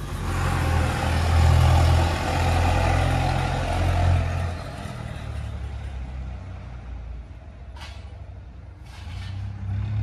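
Truck engine running loud for the first four seconds or so, then fading, with a second rise near the end.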